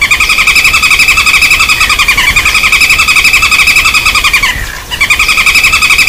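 Flameback woodpecker calling in a fast trill of sharp repeated notes, played loud as a bird-lure recording, with a short break near the end.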